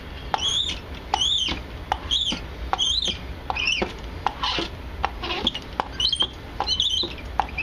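Hand roller (brayer) squeaking as it is rolled back and forth over canvas laid in wet gel medium on a board: a string of short, high squeaks rising and falling in pitch, with small clicks between them.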